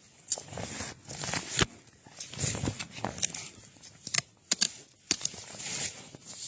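Irregular rustling and scraping of dry forest litter and soil being disturbed by hand, with scattered sharp clicks and snaps.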